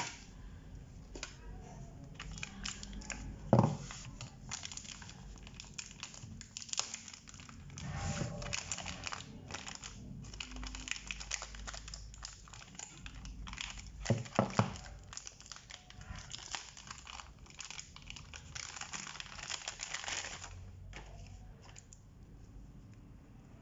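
Plastic packaging crinkling and rustling as it is handled and pulled open, with a sharp knock a few seconds in and a quick double knock a little past halfway.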